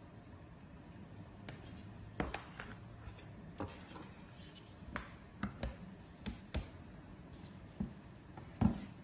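A cat scratching and knocking about a cardboard box: about a dozen irregular light scrapes and taps, the loudest knock near the end.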